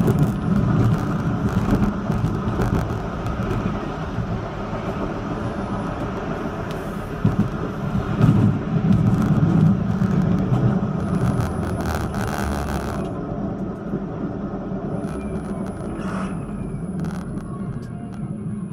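71-931M Vityaz-M low-floor tram running along its track: a steady rumble of wheels on rail and traction drive, with a brief rise in hiss about two thirds of the way through.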